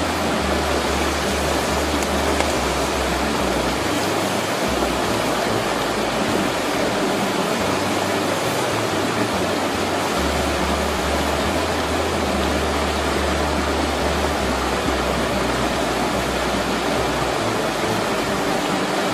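Steady rushing hiss of a river flowing over rocks, mixed with worms sizzling in hot oil in a pan over a wood fire, and a low rumble that comes and goes.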